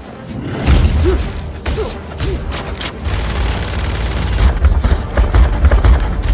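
Action-scene sound effects from an inserted film or cartoon clip: a deep rumble with a rapid run of sharp cracks and impacts, starting about a second in, with music underneath.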